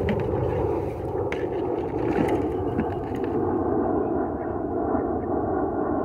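Wind buffeting the microphone: a steady, heavy rumble, with a few faint clicks in the first three seconds.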